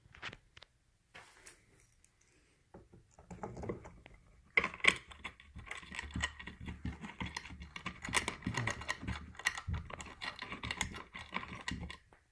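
Small metal bolts and hardware for a wooden chair leg being handled and fitted by hand: a few scattered clicks, then from about four and a half seconds in, a busy run of rapid clicking and light rattling.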